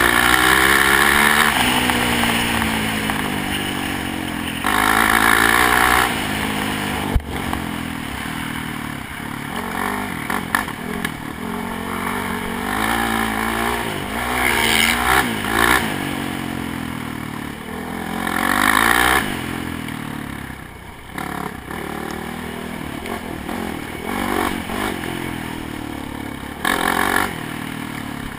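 ATV engine revving up and falling back again and again as the quad is ridden hard along a rough dirt trail, with the machine rattling over the bumps and a sharp knock about seven seconds in.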